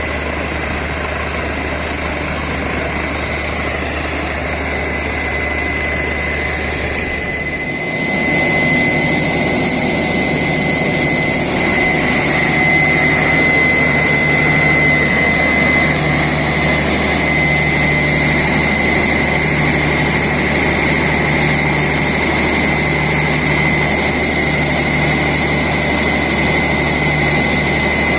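Borewell drilling rig running and drilling: a loud, steady machine din with a high whine over a deep hum. It grows louder about eight seconds in.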